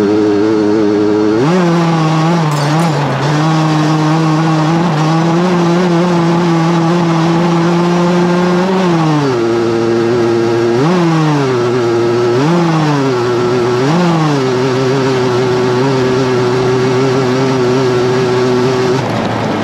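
Racing lawnmower's engine heard onboard at high revs, held level for several seconds, then dropping and climbing back four times as the throttle comes off and on again.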